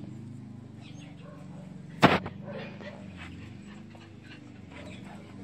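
Small dogs in a kennel pen, with faint dog sounds over a steady low hum. One sharp, loud crack comes about two seconds in.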